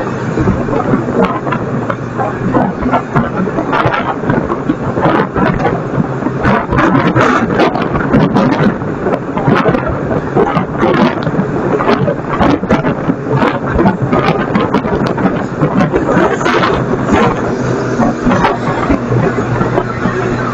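Garbage truck running with a steady low hum, under dense, continuous crackling and knocking from yard waste being handled.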